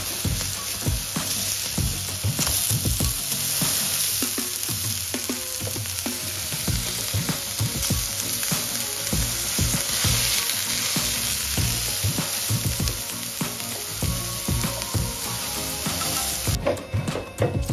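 Plant-based burger patties sizzling as they shallow-fry in oil on a flat griddle, with a wooden spatula scraping and knocking against the pan. The sizzle cuts off suddenly near the end.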